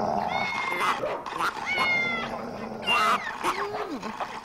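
Cartoon cat meowing several times, in short calls about a second apart, with a low falling sound near the end.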